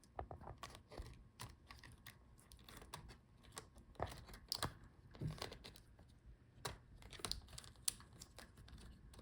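Faint scattered clicks and taps with light rustling, from hands working small plastic latches on a laptop's ribbon-cable connectors to free the keyboard cable.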